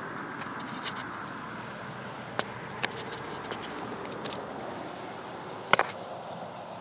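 Steady hiss of traffic on a highway bridge, with a few sharp clicks; the loudest is a quick double click about six seconds in.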